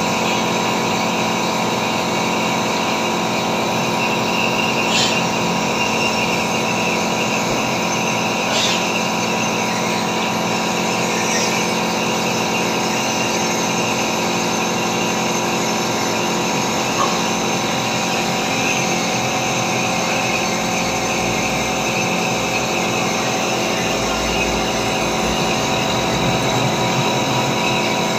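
Steady hum of an electric motor running without change, with two faint clicks about five and eight and a half seconds in.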